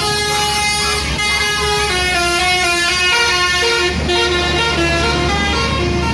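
Indonesian bus telolet horn playing a tune of held notes that step up and down in pitch, over the steady low rumble of the bus's engine.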